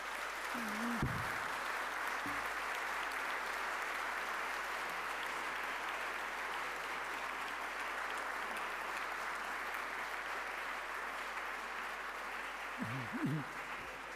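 Audience applauding, a steady dense clapping that eases off slightly near the end, with a brief voice about a second in and again near the end.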